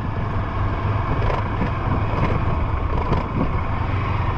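Honda CG 150 Fan's single-cylinder four-stroke engine running steadily under way, with wind buffeting the microphone and tyre noise from a dirt road.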